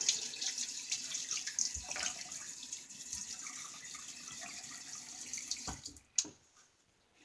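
Bathroom tap running into a sink as a shaving razor is rinsed off under it, with scattered light clinks. The water stops about six seconds in, followed by one sharp click.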